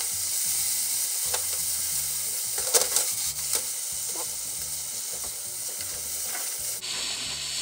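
Water splashed into a hot frying pan of steamed yakisoba noodles, sizzling loudly as the noodles are tossed and loosened with wooden cooking chopsticks. A few sharp taps of the chopsticks on the pan come through, and the sizzle dies down about seven seconds in.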